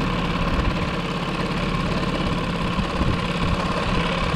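Outboard motor running steadily at trolling speed, with a constant low hum and a rough, pulsing low end, over wash from the boat's wake.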